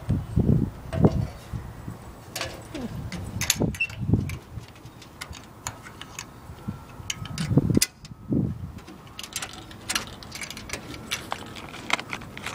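Handling noise: irregular light clicks and taps, with a few short low thumps.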